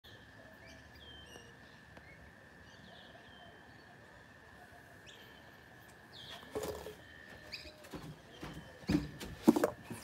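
Small birds chirping faintly, in short scattered calls over a faint steady high tone. From about six and a half seconds in comes a run of louder thumps and knocks, the loudest just before the end.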